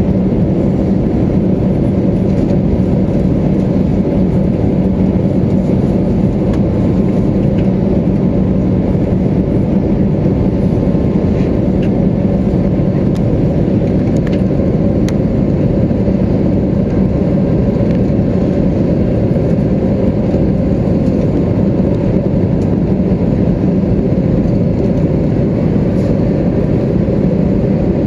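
Steady engine and airflow noise heard inside the passenger cabin of an Airbus A320neo with Pratt & Whitney PW1100G geared turbofans, a constant low hum that does not change in level or pitch.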